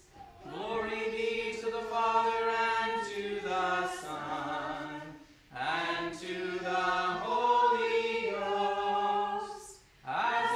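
A small congregation chanting a canticle of Morning Prayer in unaccompanied voices. The chant moves in held phrases of a few seconds each, with a short break for breath about halfway through and another near the end.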